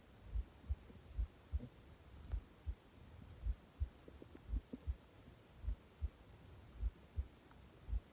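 Stomach sounds picked up close to the belly: a low, regular thumping pulse at about two to three thumps a second, with a few faint short gurgles about four to five seconds in.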